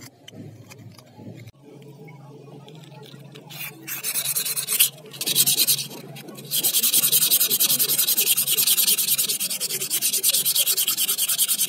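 Sandpaper wrapped around a small block, scrubbed fast back and forth along a rusty steel knife blade to take off rust, a scratchy rasping hiss. It comes in two short bursts about four seconds in, then runs on as quick continuous strokes from about halfway, after quieter handling of the paper at the start.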